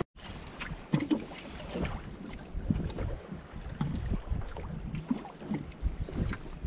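Water lapping and knocking against the hull of a fishing kayak in irregular small thumps, with wind on the microphone.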